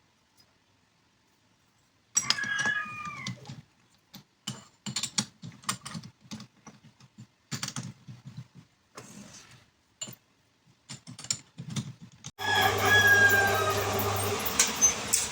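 A rooster crows about two seconds in, followed by scattered short clicks and knocks of hand work. About twelve seconds in, a steady, louder rushing noise starts.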